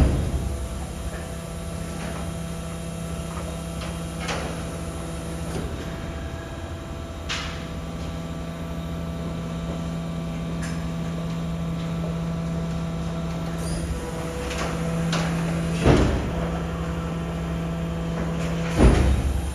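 BYD electric garbage truck running with a steady electric hum. Metal clanks and bangs cut across it: a loud one at the start, lighter ones about four and seven seconds in, and two heavier bangs near the end.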